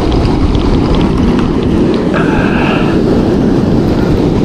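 Wind buffeting the microphone on an open surf beach, a loud, steady, low rumble. About two seconds in, a brief higher-pitched tone rises over it for under a second.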